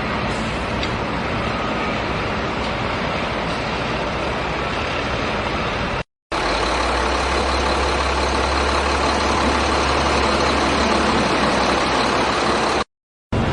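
Heavy diesel engine of an excavator at work loading sand, running steadily. The sound drops out completely twice, about six seconds in and near the end. After the first break there is a steady low drone and it is slightly louder.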